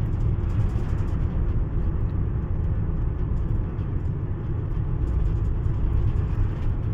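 Steady low rumble of road noise from a moving car, heard from inside the cabin while driving.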